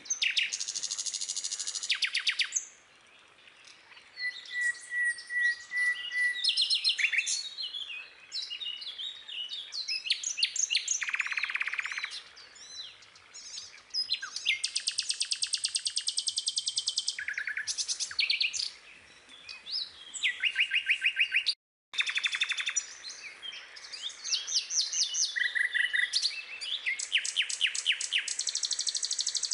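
Several songbirds singing and chirping over one another, with fast trills and short whistled notes; the sound cuts out completely for a moment about two-thirds of the way through.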